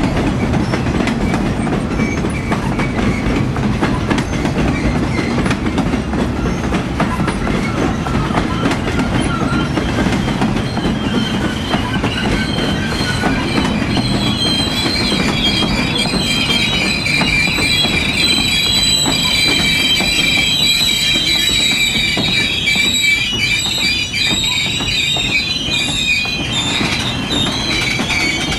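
Passing train of loaded flatcars: a steady rumble of steel wheels rolling over the rails with a clickety-clack. From about halfway, the wheels squeal on the rail in several high held tones over the rumble.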